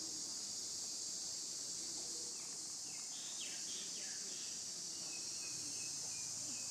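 Steady high-pitched insect chorus, shrill and unbroken. A few short falling chirps come near the middle, and a thin held high note near the end.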